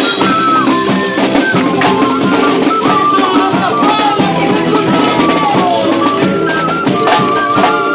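Live music from a small ensemble: a held, gliding melody line over busy tambourine and rattle percussion.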